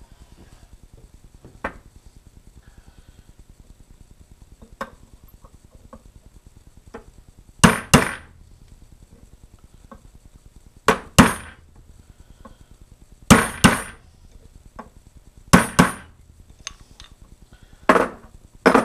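Brass hammer tapping a 1/8-inch roll pin into the cross hole of a tubular lathe chuck key's tube handle. About ten sharp metallic strikes, mostly in quick pairs every two to three seconds from about eight seconds in, driving the pin down flush, with light handling clicks before them.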